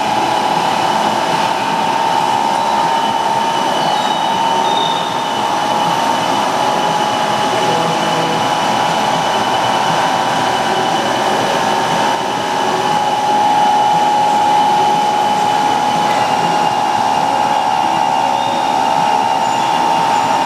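Steady running-machinery noise in a machine shop: a continuous hum with a high, even whine held at one pitch throughout.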